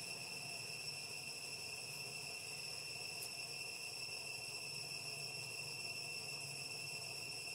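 Steady insect chorus: a continuous shrill drone held at several high pitches without a break.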